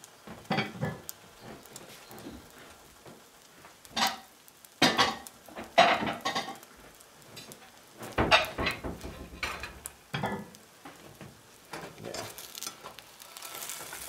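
Rolled egg omelette frying in a pan with a soft sizzle, broken by several short clatters of kitchenware being handled.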